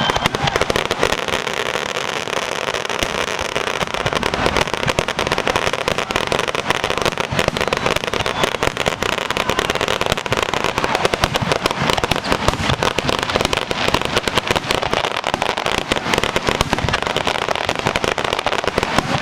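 Fireworks finale: a dense, continuous barrage of bangs and crackling shells going off one on top of another, without a pause.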